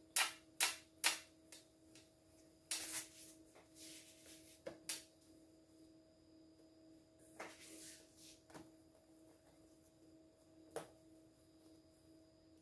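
Hands handling soft bread dough on a sheet-covered work table: a quick run of four sharp taps, a few brief rustles and scattered single taps. A faint steady hum runs underneath.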